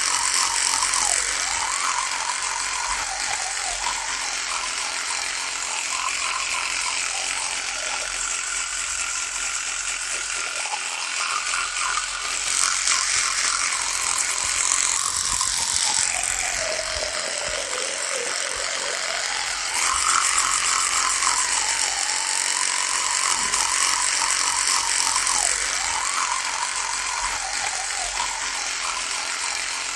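Electric toothbrush running with a continuous buzz. Its pitch sags and recovers every few seconds, most deeply about two-thirds of the way through.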